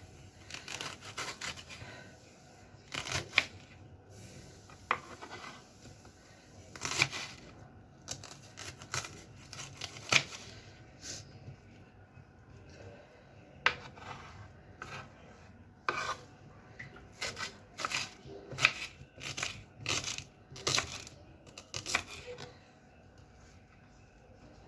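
A knife cutting onions on a cutting board: irregular sharp cuts and knocks, coming more often near the end, with quieter rubbing and rustling between them.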